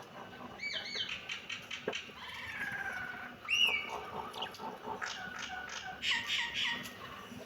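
Several kittens meowing in short, high-pitched, overlapping calls, many falling in pitch, with a loud single meow about three and a half seconds in.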